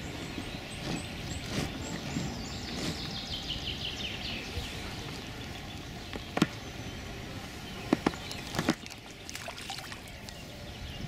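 Waterside ambience. A small songbird sings a fast trill that falls in pitch over a few seconds. Later a few sharp knocks and a splash come as a fish swirls at the surface beside the float.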